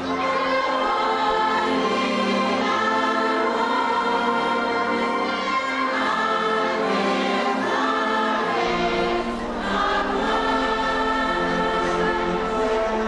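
A choir singing, many voices holding long notes together.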